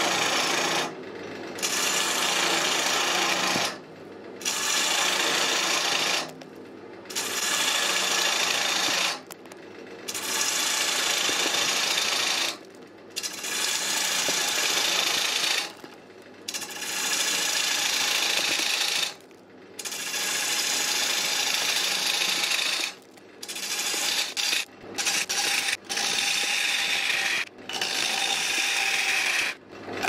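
Gouge cutting the face of an oak blank spinning on a wood lathe: a steady rasping hiss of shavings being peeled off, in passes of a few seconds broken by short gaps where the tool comes off the wood.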